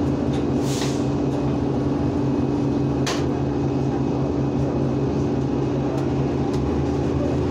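Bus running, heard from inside the passenger cabin: a steady engine and drivetrain hum under road noise, with two short hisses about one second and three seconds in.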